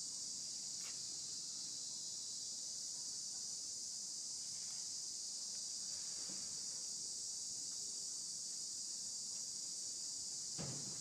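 Steady, high-pitched outdoor insect chorus buzzing without a break, with a few faint soft knocks about six seconds in and near the end.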